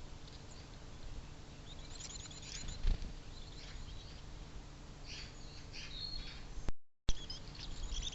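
Small songbirds chirping and twittering in short bursts at a bird feeder, over a steady low rumble, with a dull thump about three seconds in. The sound cuts out completely for a moment near the end.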